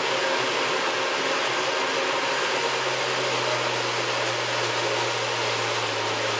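Countertop blender running steadily, pureeing a full jar of tomatoes, peppers, cucumber and onion into gazpacho: a loud, even motor whir with a low hum.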